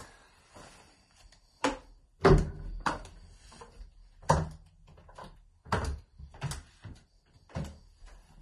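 A series of about seven knocks and thuds at uneven intervals, the loudest a little over two seconds in, like a door and other things being handled in a room.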